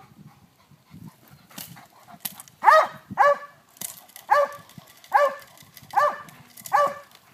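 Dog barking repeatedly while held back by its harness, aroused by a decoy in a bite suit during protection training. After a quiet start come a couple of fainter barks, then a run of about six loud barks, each less than a second apart.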